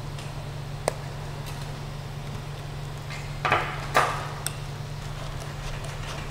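Creality CR-6 SE 3D printer humming steadily while its nozzle heats for filament loading. A sharp click comes about a second in, and two short scraping rustles come at about three and a half and four seconds as the filament is handled.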